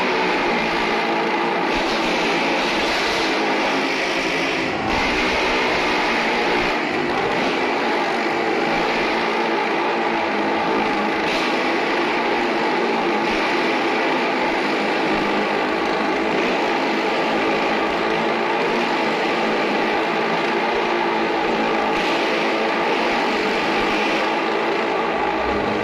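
Two motorcycles running continuously as they ride around the vertical wall of a wall-of-death drum, their engine notes overlapping and wavering slightly as they circle.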